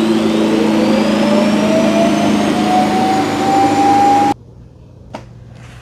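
Shark Matrix (RV2310AE) self-empty base's suction motor running to empty the docked robot vacuum's dustbin. It is a loud rushing noise with a whine that rises steadily in pitch, then cuts off suddenly about four seconds in.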